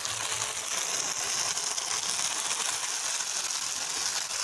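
Tomato and pepper sauce sizzling steadily in oil in a frying pan as cooked spaghetti is added.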